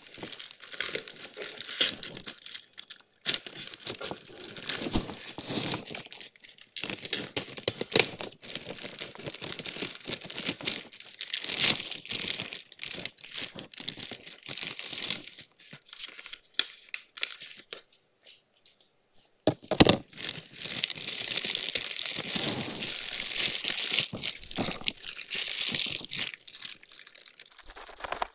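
Plastic courier mailer bag being slit with a craft knife and torn open by hand: continuous crinkling and tearing of the plastic film, with a sharp click about two-thirds of the way through.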